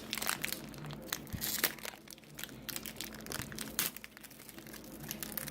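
Foil Pokémon card booster pack wrapper crinkling and being torn open by hand, in irregular sharp crackles.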